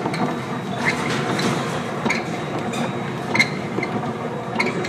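Steady rushing noise of wind and sea around a container ship pitching through heavy storm waves, with about five sharp clinks and knocks spread through it, the loudest about three and a half seconds in.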